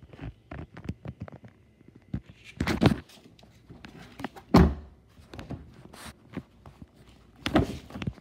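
Handling noise and knocks as someone moves about and climbs out of a car's back seat holding the camera. There are scattered rustles and taps, and a heavy low thunk about four and a half seconds in is the loudest.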